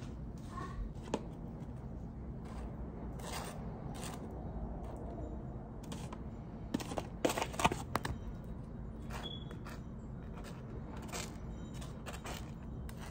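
Light kitchen handling sounds over a steady low hum: scattered clicks and soft scrapes of a table knife spreading jam on toast and of plates being handled, busiest about seven seconds in.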